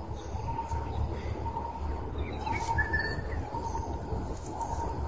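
Birds chirping and calling, with a short run of chirps and one brief held note about halfway through, over a steady low rumble.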